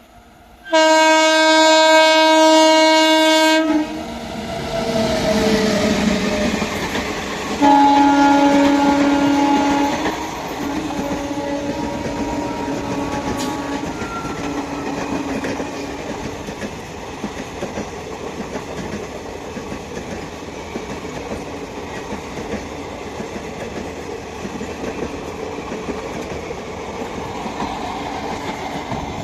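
WAG-9HC electric locomotive's horn sounds a blast of about three seconds, its pitch sliding down as the locomotive passes at speed, then a second, lower-pitched blast a few seconds later. After that the passing train's wheels on the track make a steady noise.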